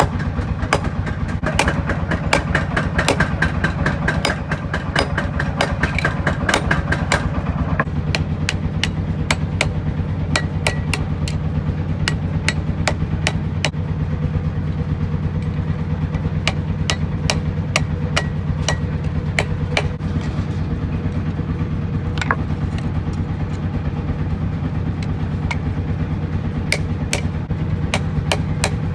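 Hand hammer striking a hot rebar sickle blade on a steel anvil, blow after blow with a metallic ring. The blows come fast for the first several seconds, then at about two a second. A steady low hum runs underneath.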